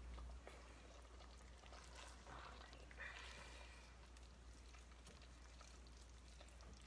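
Faint wet squelching and light spoon scrapes as thick macaroni and cheese is stirred in a stainless steel pot, a little louder for a moment near the middle. A steady low hum sits underneath.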